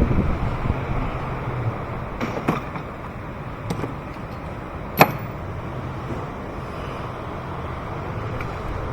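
Steady rushing background noise, with a few light clicks and one sharp click about five seconds in.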